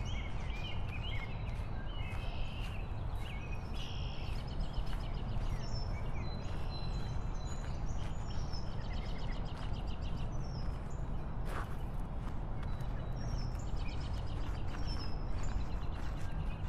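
Birds chirping and trilling again and again over a steady low rumble of wind and road noise from a moving motorcycle.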